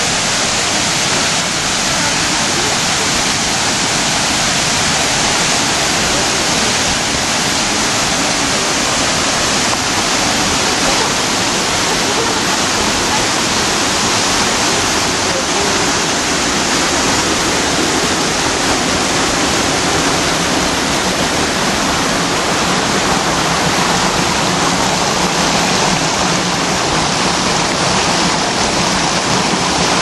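Water of a waterfall cascading over mossy rock ledges close by: a loud, steady rush.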